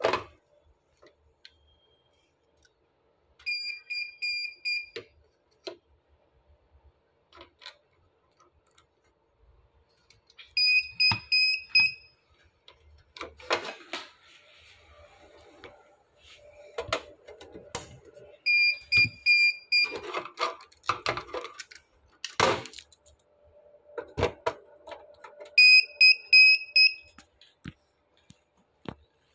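Dahua NVR4108HS recorder's board buzzer sounding rapid runs of high-pitched beeps, four runs about seven to eight seconds apart: the alarm a Dahua recorder gives when no hard disk is installed. Handling clicks and rustles and one sharp knock fall between the runs.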